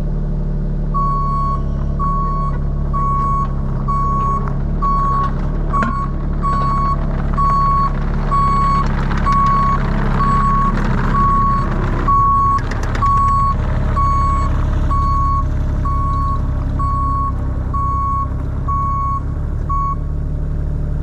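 Diesel engine of a small JCB 19C-1 mini excavator running steadily while its alarm sounds a single high beep about once a second, the signal that the machine is travelling. A couple of knocks sound over it, one about six seconds in and another just past the middle.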